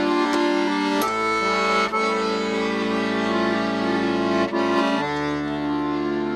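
Bayan (Russian chromatic button accordion) playing held chords that change every second or two, moving to a lower, fuller chord about five seconds in.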